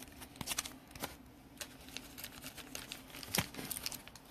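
Light clicks, taps and crinkles of trading cards and their plastic holders being handled, with one sharper tap about three and a half seconds in.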